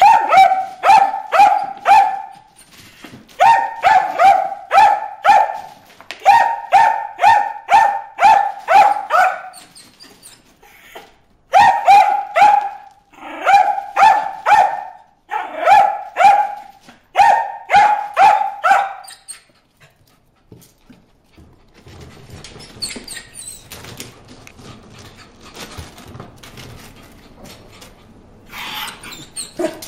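Dog barking at goldfish in a pond tub: short, high-pitched barks about three a second, in runs of several with brief pauses. The barking stops about two-thirds of the way through, leaving a quieter stretch of faint rustling, and starts again at the very end.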